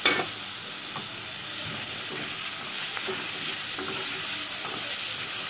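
Green chillies and onions sizzling in oil in a steel kadai while a steel spoon stirs in freshly added coriander and mint leaves. The sizzle grows a little louder about two seconds in.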